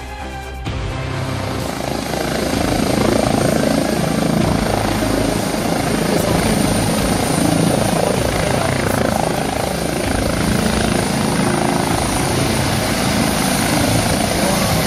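Music cuts off under a second in. It gives way to a rescue helicopter lifting off and hovering low: loud rotor and turbine noise with a steady high whine, growing louder about two seconds in.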